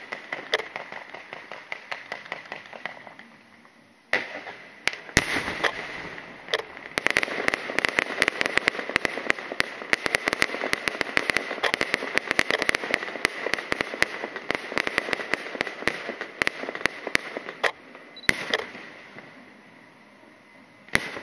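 A string of firecrackers going off in rapid crackling pops: lighter at first, a short lull, then a long dense barrage that thins out to scattered pops. Near the end a single louder bang from a firework shell bursting.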